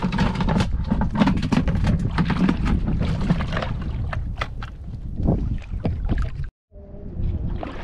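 Water splashing and sloshing around someone moving through shallow reef water, full of short crackling splashes. It cuts out abruptly for a moment about six and a half seconds in and comes back quieter.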